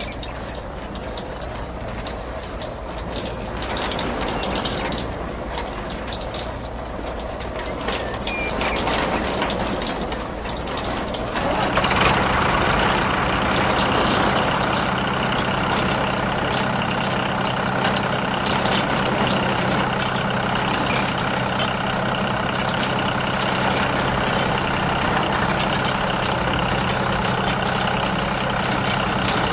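Small motor running steadily while it spins a wheel of brush arms over a sandy surface. About eleven seconds in, the sound turns louder and becomes a steady hum.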